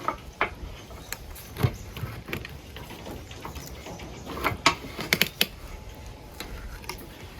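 Irregular knocks and clicks of a piece of wood being handled and set in place, with a quick cluster of small knocks about five seconds in.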